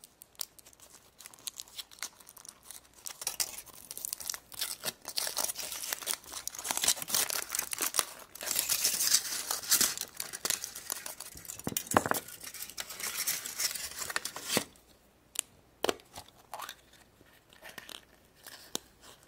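Surprise egg's wrapper being torn open and crinkled by hand: a long busy run of crackling and tearing that stops about fifteen seconds in, followed by a few scattered clicks and rustles.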